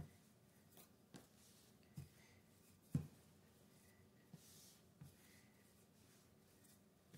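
Near silence with faint sounds of a rolling pin working pie dough on a counter: soft knocks and light rubbing about once a second, the loudest about three seconds in.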